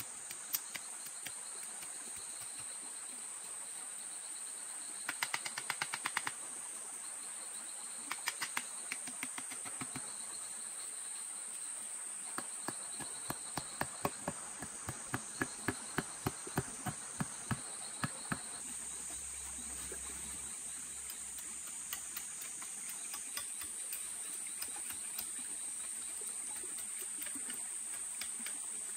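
Insects in the forest buzzing in a steady high-pitched drone, with a second pulsing insect tone that comes and goes. Over it come runs of quick, sharp taps or knocks: a short burst about five seconds in, another around eight to ten seconds, and a longer, louder run from about twelve to eighteen seconds.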